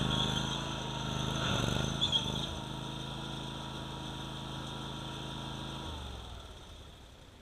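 Bad Boy ZT Pro zero-turn mower's 27-horsepower Kohler engine running steadily, louder for the first couple of seconds. About six seconds in it is shut off and its pitch falls as it spins down to a stop.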